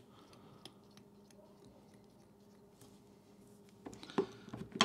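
Faint snips and clicks of small fly-tying scissors trimming excess material at the fly, over a low steady room hum, with a few sharper clicks about four seconds in.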